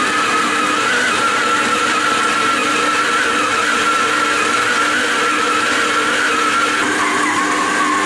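Electric stand mixer running at high speed with a steady motor whine while it kneads bread dough to develop the gluten.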